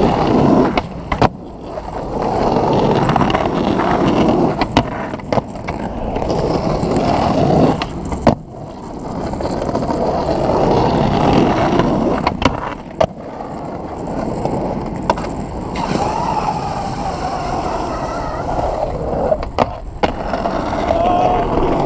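Skateboard wheels rolling on asphalt: a steady rumble broken several times by sharp clacks of the board and a few brief gaps.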